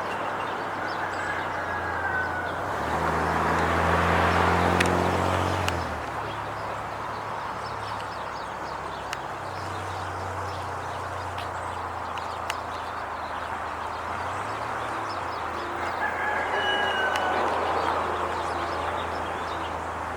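A bird's falling call, heard twice, once about a second in and again around sixteen seconds, over steady outdoor background noise. A low engine hum swells and fades between about three and six seconds.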